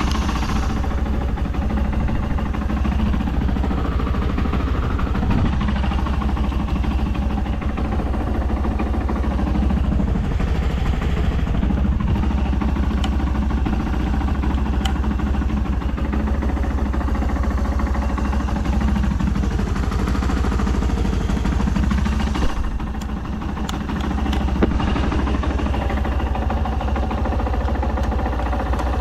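Yamaha Serow 225WE's air-cooled single-cylinder four-stroke engine idling steadily through a Delta Barrel 4 aftermarket up-muffler, running with no abnormal noises. The sound dips briefly about three-quarters of the way in.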